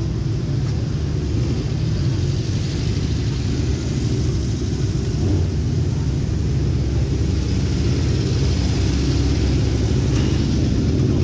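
Steady low rumble of vehicle engines running, with no single event standing out.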